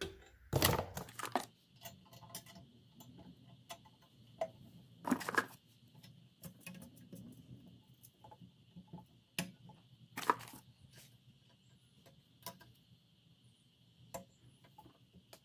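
Light clicks and taps of exhaust gaskets being handled and slid onto metal header flanges, with a few louder knocks about half a second in, near five seconds and near ten seconds.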